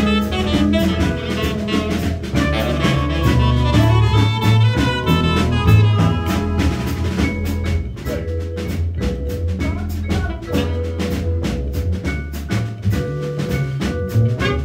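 Small jazz band playing live: trumpet and saxophone over drum kit, upright bass and mallet keyboard. The playing thins out to sparser notes about halfway through.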